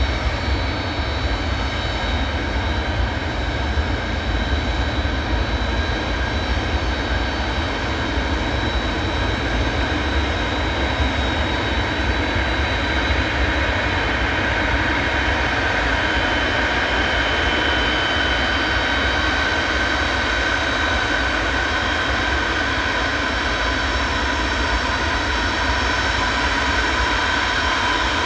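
Antonov transport aircraft's engines running loudly and steadily: a deep rumble under several high whining tones, the whine growing stronger about halfway through.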